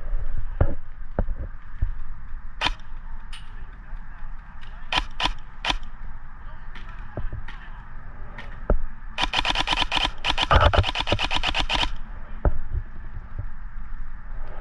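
Airsoft guns firing: scattered single sharp cracks, then a rapid burst of about three seconds about two-thirds of the way in. A steady low rumble runs underneath.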